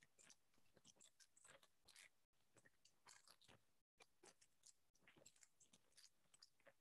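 Very faint, irregular crinkling of clear plastic wrap around a graphics card as it is handled.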